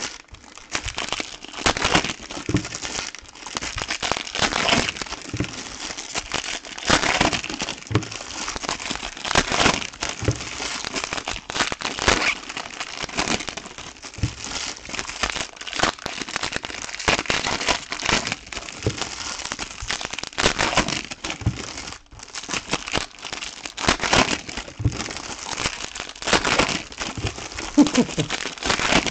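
Foil wrappers of Topps Chrome trading-card packs crinkling and crackling as the packs are torn open and handled, in dense, irregular crackles throughout.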